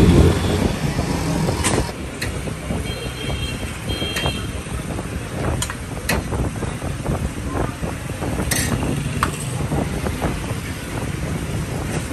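Street traffic noise, a steady low rumble of passing vehicles, with scattered sharp clinks of steel ladles and spoons against steel serving bowls.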